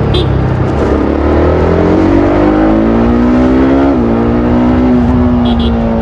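TVS Apache RR310's single-cylinder engine through its stock exhaust, rising in pitch as the bike accelerates, then dropping sharply about four seconds in at an upshift and pulling on steadily in the higher gear.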